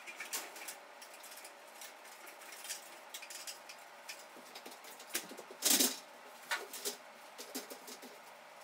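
Small handling noises of a hanging sculpture being tied up by hand from a stepladder: scattered light clicks and rustles of cords and parts, with one louder rustle or knock about six seconds in.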